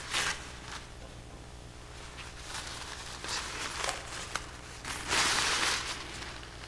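Paper towel crinkling and rustling against a bowl as its rim is wiped clean. The loudest stretch lasts about a second, around five seconds in, with shorter rustles and light scrapes before it.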